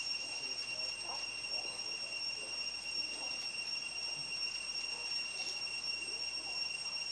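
Steady high-pitched insect drone of forest ambience, two unwavering tones with no pauses, and faint scattered short chirps beneath it. The owl is not calling.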